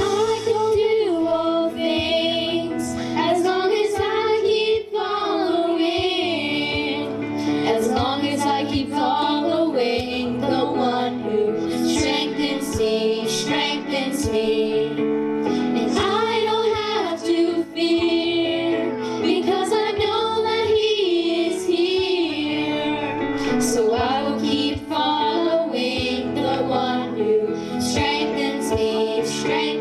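Young voices singing a song with lyrics over instrumental accompaniment, the notes held and sliding between phrases.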